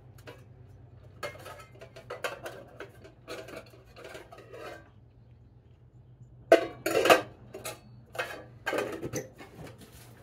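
Metal clinking and clattering of a square metal camp cook pot and its lid as a small camp stove is handled and lifted out of it, with a few louder knocks a little after halfway.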